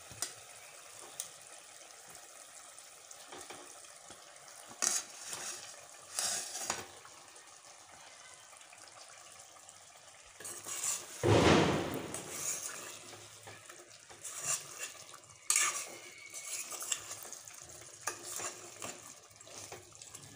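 Fried chicken pieces being added to masala gravy in a kadai and stirred: a low sizzle with clinks and scrapes of a spoon and plate against the pan, the loudest a longer scraping clatter about eleven seconds in.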